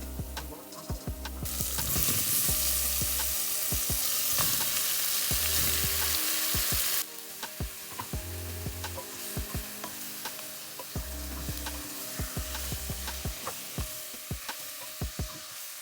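Food sizzling in hot oil in a pot as it is stirred, with a spoon clicking against the pot many times. The sizzling is loud from about a second and a half in and drops off abruptly at about seven seconds, and quieter sizzling and clicks go on after that.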